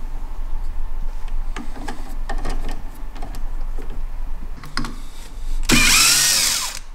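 Metal clicks of a chuck key working a four-jaw lathe scroll chuck, then near the end a Bosch cordless drill-driver whirs for about a second, its pitch shifting, as it drives a screw through a faceplate into a sapele blank.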